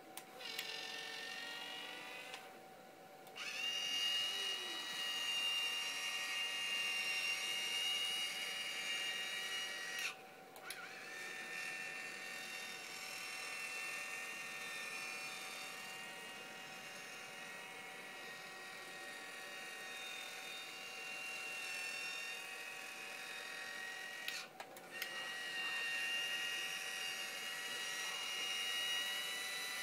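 Small electric pan motor of a motorised HID searchlight running with a steady high whine as the lamp head turns, stopping briefly three times and starting again.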